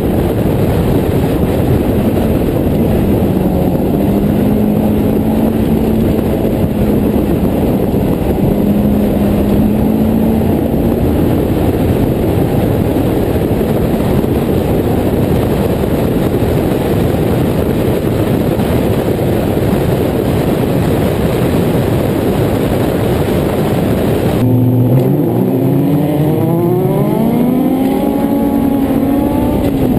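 Onboard sound of a Westfield clubman car's Honda S2000 four-cylinder engine running at speed under heavy rushing wind noise in the open cockpit. About two-thirds of the way through, the wind noise drops away and the engine note climbs again and again, with breaks between, as the car accelerates up through the gears.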